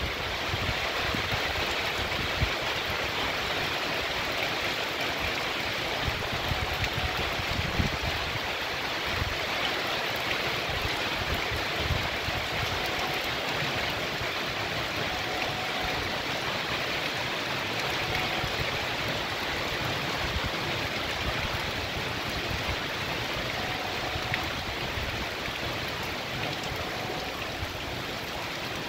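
Heavy rain pouring steadily onto a paved street and trees, a dense even hiss.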